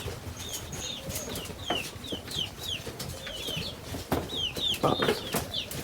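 A pen of seven-week-old chickens peeping: many short, high calls, each falling in pitch, overlapping from several birds, with a few scattered clicks and taps.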